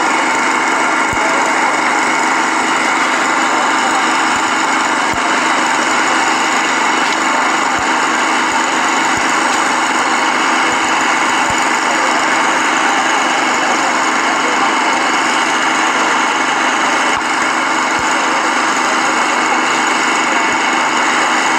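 An engine idling steadily, one constant drone with no change in pitch or level.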